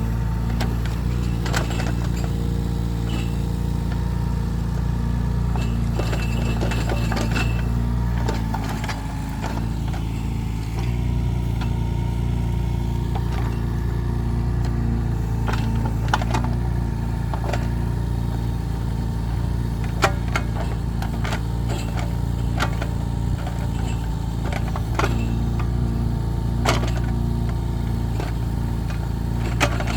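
Mini excavator engine running steadily, easing briefly about nine seconds in, with scattered sharp knocks, the loudest about twenty seconds in.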